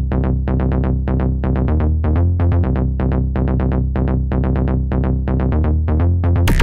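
Background electronic music: a fast repeating synth figure over a steady bass, with a fuller beat coming in near the end.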